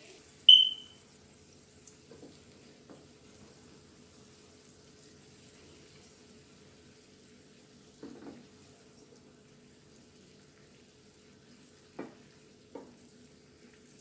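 Sugar-and-oil syrup boiling gently in a small pan on a gas hob, a faint bubbling, with a wooden spatula knocking against the pan a few times. A short, loud high-pitched ping sounds about half a second in.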